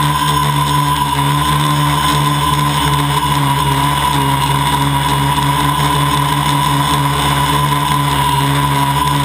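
Homebuilt drone's motors and propellers running at a steady pitch, a loud even whine and buzz heard from on board during flight.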